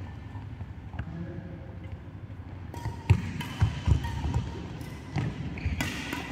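Badminton rally in a large indoor hall: rackets striking the shuttlecock with sharp hits, and players' feet thudding on the court, starting about three seconds in.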